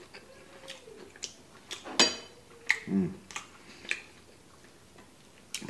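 Close-up chewing of a mouthful of oven-baked breaded chicken katsu: scattered sharp mouth clicks and smacks, the loudest about two seconds in, and a short hum about three seconds in.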